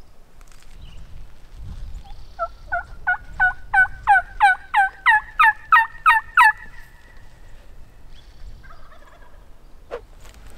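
Hunter calling like a hen turkey on a mouth call: a run of about a dozen yelps, each note breaking down in pitch, growing louder and a little quicker for about four seconds. The calling is meant to locate a gobbler. A single sharp click comes near the end.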